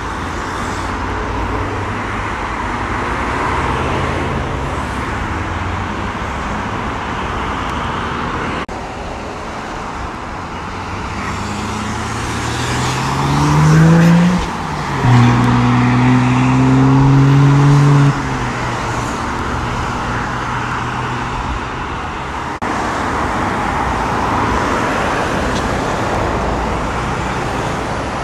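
Road traffic noise from cars pulling away, with a car engine accelerating hard through the middle: its note climbs, drops briefly at a gear change, then holds loud for about three seconds and cuts off abruptly.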